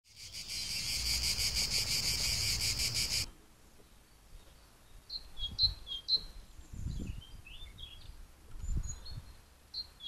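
An insect's rapid, high pulsing trill for about three seconds, cutting off abruptly. After a short pause, a small songbird gives short high calls in quick pairs and a brief twittering phrase, with a few soft low thumps.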